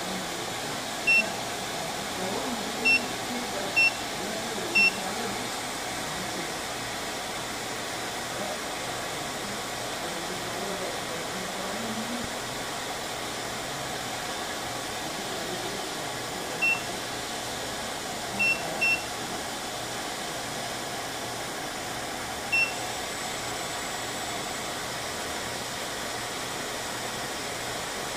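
Short high beeps from the keypad of a Maynuo M9716 DC electronic load as its current setting is keyed in, four in the first five seconds and four more later on, two of them close together. Under them is a steady fan whir from the load and the power supply it is loading.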